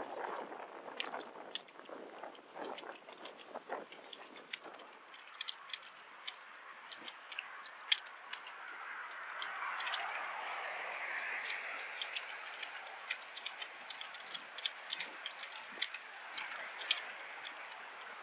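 Bicycle in motion: many light, irregular clicks and rattles over a steady rushing noise that swells about ten seconds in.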